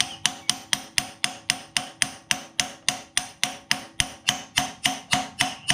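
Hammer tapping steadily on a socket, about four even blows a second, each with a short metallic ring, driving a pilot bearing into the end of a 351 Windsor V8 crankshaft.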